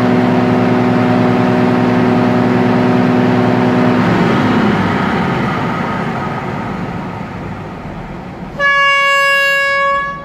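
Hitachi RHN diesel railcar's engine running at high revs to build brake air pressure, dropping back and fading off about four seconds in. About eight and a half seconds in, a train horn sounds one loud blast of about a second and a half.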